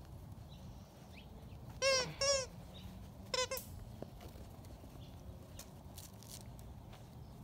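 Puppy yelping: three short, high yelps, two close together about two seconds in and a third about a second later.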